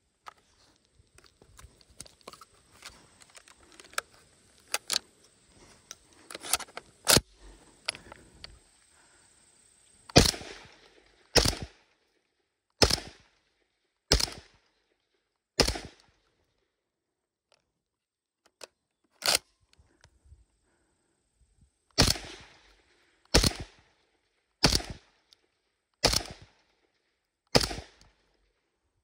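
Tavor TS12 12-gauge semi-automatic bullpup shotgun firing eleven shots. The first ten seconds hold only lighter clicks and knocks, then come five shots about a second and a half apart, a single shot after a short pause, and five more at the same pace.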